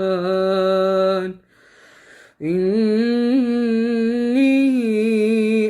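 Male Quran reciter chanting in tajweed style, drawing out the word 'ar-Rahman' on a long held note. He breaks off for a short breath about a second and a half in, then sustains another long melodic note with small ornamental turns.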